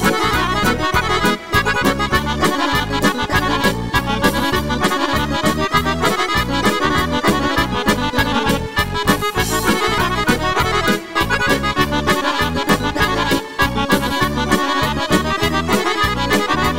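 Instrumental break of a Serbian folk song: an accordion plays the melody over a steady bass and drum beat.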